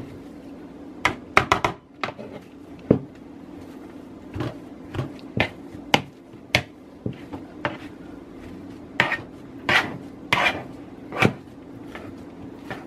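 Metal potato masher mashing soft boiled potatoes in a bowl, knocking against the bowl in irregular clacks, well over a dozen strokes, as the potatoes are worked into a purée.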